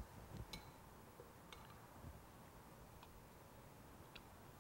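Near silence: quiet room tone with a few faint, short ticks, the first a light clink of a spoon against the bowl.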